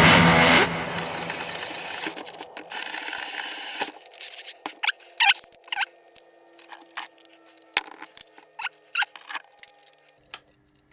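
Music cutting out, a steady hiss, then scattered light clicks and short squeaks of small hardware being handled and fitted.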